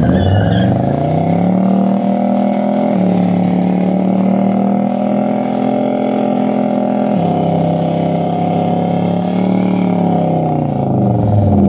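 1970 Oldsmobile F-85 W-31's 350 V8 revved hard through a burnout, spinning the rear tyre. The engine note climbs over the first couple of seconds, holds high with two small drops in pitch, then winds down near the end as the revs come off.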